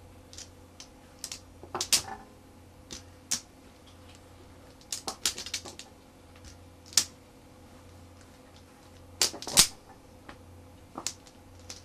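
Mahjong tiles clacking against one another as hands move and line up the tile walls: irregular sharp clicks, some single and some in quick runs, the loudest a little past the middle.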